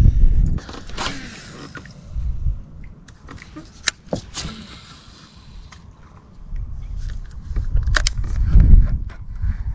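Wind buffeting the camera microphone in low gusts, strongest near the end, with a few sharp clicks and taps from handling a baitcasting rod and reel.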